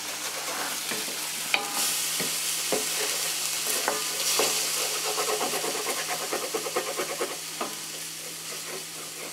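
Chopped mushrooms, ham and vegetables sizzling in an electric fry pan while a wooden spatula stirs and scrapes them. There is a steady sizzle, with a run of quick scraping strokes in the middle.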